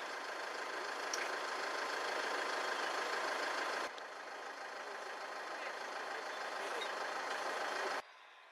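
A vehicle engine running steadily, with a faint steady whine over it. The sound shifts abruptly about four seconds in and drops to a low hush near the end.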